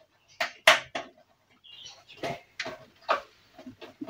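Sharp clicks and clattering knocks of computer hardware being handled and fitted into a PC case, about half a dozen in all, the loudest a little under a second in.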